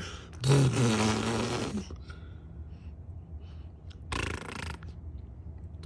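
A man's low, buzzing mouth noise like a blown raspberry, lasting over a second, starting about half a second in. A shorter breathy burst follows about four seconds in.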